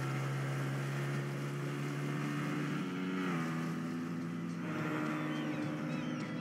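A motorboat engine running steadily, its pitch dropping slightly a little after three seconds in.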